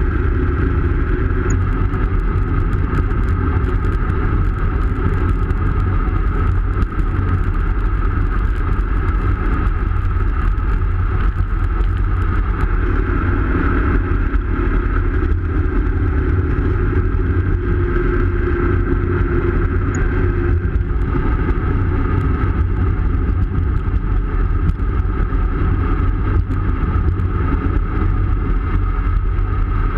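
Steady wind rushing over the microphone of a bike-mounted camera, with tyre and road noise from a road bike riding at speed, heavy in low rumble.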